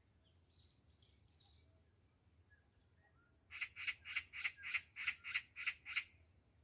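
Magpie chattering in alarm, a run of about ten harsh, rasping notes at roughly four a second starting about halfway through: scolding the cat. Faint chirps of small birds before it.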